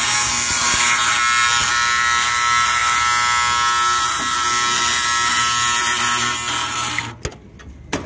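Seized combustion blower (inducer) motor on a Trane gas package rooftop unit buzzing loudly while energised for low-fire heat: the rotor is locked up and not turning. The buzz cuts off suddenly about seven seconds in, followed by a couple of clicks.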